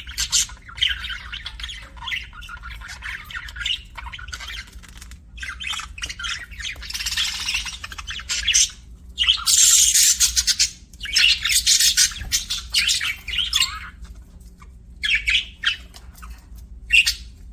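Budgie (budgerigar) chattering and squawking in irregular bursts of high-pitched calls, loudest about ten seconds in, over a faint steady low hum.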